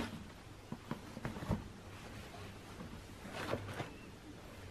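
Faint handling noise of a large cardboard shoe box being turned over in the hands: a few light taps and scrapes in the first second and a half, and a short cluster of them about three and a half seconds in.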